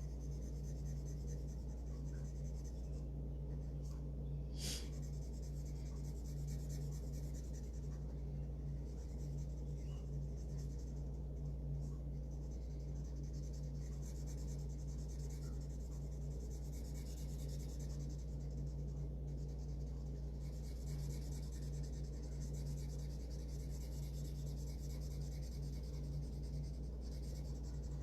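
Coloring strokes on paper: a scratchy hiss of the tip rubbing back and forth over the paper that comes and goes in spells, over a steady low electrical hum. A single sharp click about five seconds in.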